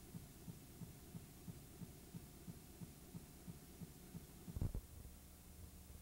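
Dropped-out audio track of an old videotape recording: a faint low hum with soft thumps about three a second, and one louder thump about four and a half seconds in, after which the thumps fade.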